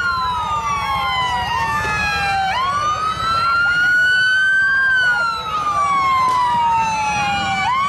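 Several police vehicle sirens sounding a slow wail together, each rising and falling in pitch over a few seconds and out of step with one another, over a low background rumble.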